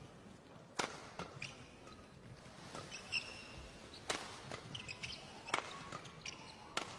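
Badminton rackets striking a shuttlecock in a doubles rally: a series of sharp, faint hits roughly a second apart, with short squeaks from shoes on the court between them.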